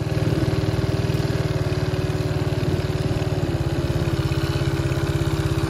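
Motorcycle engine running steadily, with even, rapid firing pulses.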